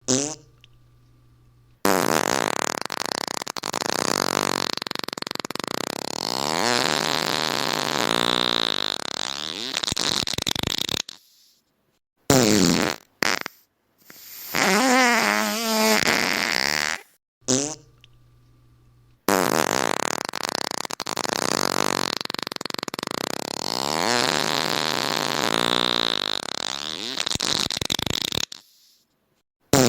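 A string of fart sound effects: a long fart of about nine seconds, then a few short ones with a wobbling pitch, then the same long fart again, with a short one near the end.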